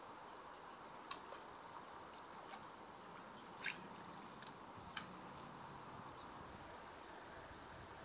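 Faint steady rush of a shallow, flowing river, broken by a few short, sharp, high-pitched ticks, the clearest about one, three and a half, and five seconds in.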